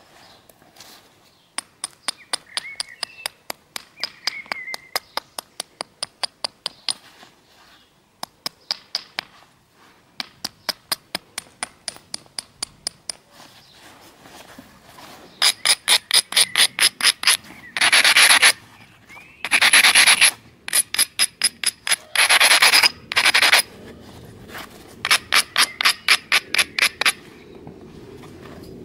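Stone abrader rubbed back and forth along the edge of a flint preform in quick scraping strokes, about four or five a second, coming in runs with short pauses. Near the end there are a few longer continuous rubs.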